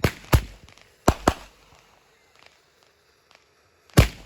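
Handheld fireworks firing: five sharp bangs, two close together at the start, two more about a second in, and one near the end.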